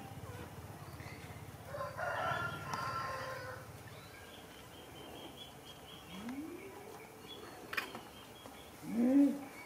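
A rooster crows about two seconds in, over faint high bird chirps. Near the end a short rising-then-falling call is the loudest sound.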